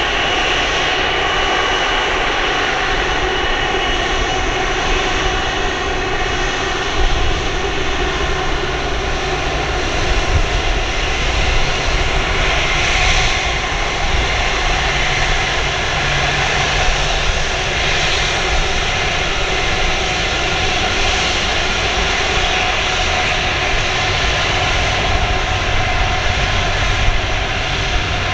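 Airbus A330-300 airliner's Rolls-Royce Trent 700 jet engines running at low taxi power as it rolls past, a steady whine over a rumble.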